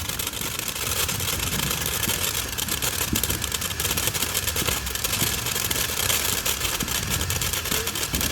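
A lit firework going off with a steady hissing, crackling rush of sparks that runs on without a break.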